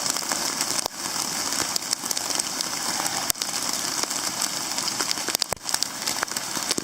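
Heavy rain pouring down, an even hiss broken by many sharp clicks of drops striking close by.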